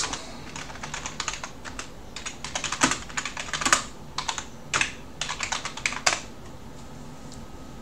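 Computer keyboard being typed on: an uneven run of key clicks for about six seconds, then it stops.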